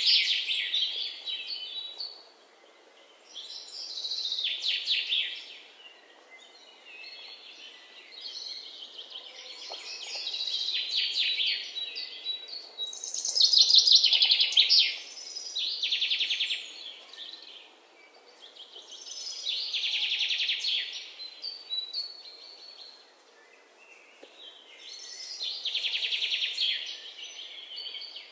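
A songbird singing short phrases of rapid, high-pitched notes, a new phrase every few seconds, over faint outdoor background noise.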